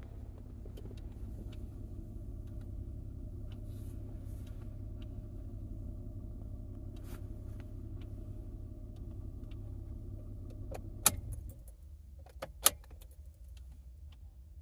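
Steady low hum in a 2012 Toyota Kluger, with faint tones and scattered light ticks; this is the gentle electrical whirring, buzzing and clicking from behind the steering wheel whose cause the owner does not know. About eleven seconds in there are two sharp clicks, and the hum drops to a lower level.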